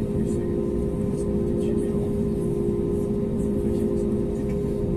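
Steady hum and low rumble heard inside the Airbus A320neo cabin during de-icing, with a few held pitched tones and no change in level. Faint ticks of de-icing fluid spray hitting the fuselage and window come and go.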